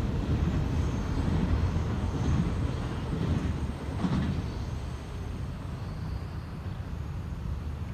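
Norfolk Southern intermodal freight train rumbling along the rails and fading as it draws away, quieter from about halfway through. A brief knock about four seconds in.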